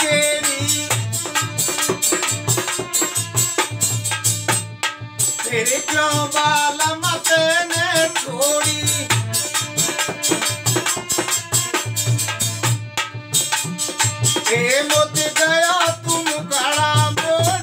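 Rasiya folk music: a dholak drum and the jingling rings of a chimta keep a steady beat under harmonium chords, while a male singer sings phrases every few seconds. The whole ensemble stops for a split second twice.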